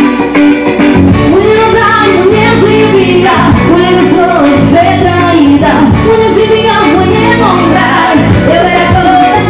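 Live band music: a woman sings lead into a microphone over electric guitars and drums.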